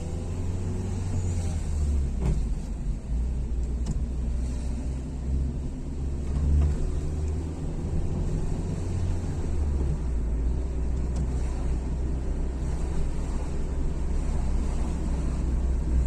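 Low, steady rumble of a car's engine and tyres heard from inside the cabin while driving.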